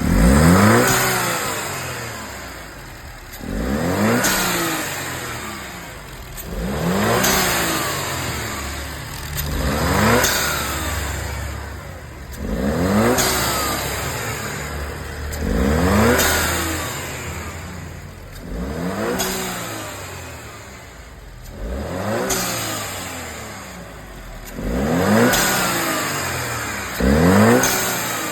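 A turbocharged Audi engine revved about ten times, roughly every three seconds, each rev dropping back down. On every throttle lift an aftermarket Savanini blow-off valve vents, giving an unusual engine sound.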